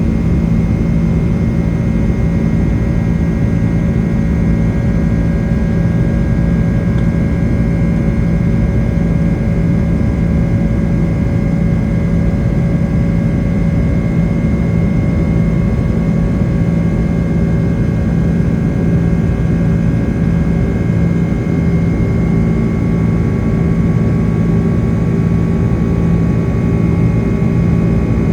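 Boeing 767-300ER's twin turbofan engines heard from inside the cabin: a loud, steady drone with a low hum and several steady whining tones over a deep rumble.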